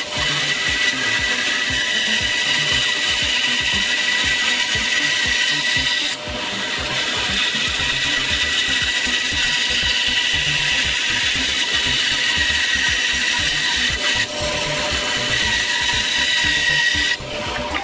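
Bandsaw running steadily with a constant whine, its blade cutting a curve through an 18 mm beech board. The sound dips briefly a few times.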